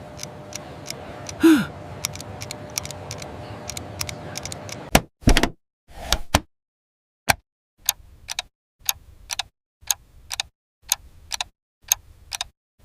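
Ticking of a clock inside a package: a steady run of sharp ticks, a few each second. A short falling groan comes about a second and a half in, and two louder knocks follow about five and six seconds in.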